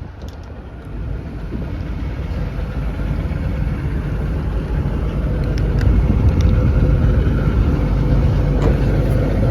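XCMG XE210CU excavator's Cummins diesel engine running steadily, growing louder over the first several seconds and then holding.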